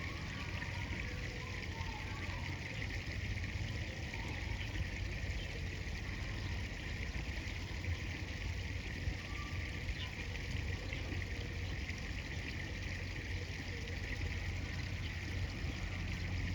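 Swift river current flowing with a steady rushing sound.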